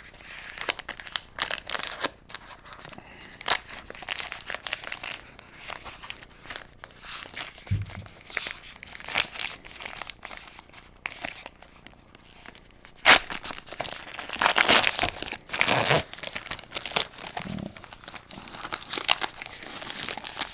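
A sealed trading-card pack's wrapper being torn open and crinkled by hand, irregular crackling rustles with a single sharp crackle about thirteen seconds in and a busier stretch just after.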